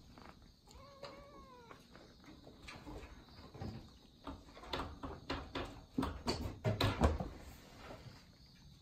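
An orange tabby kitten meows once, about a second in: a single call about a second long that rises and then falls. In the second half comes a quick run of sharp clicks and knocks as the kitten moves about its wire cage. These are loudest a little before the end.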